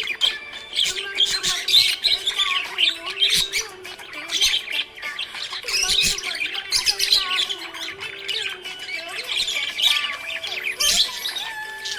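Budgerigars chirping and warbling continuously, with many quick, overlapping chirps and harsher squawks.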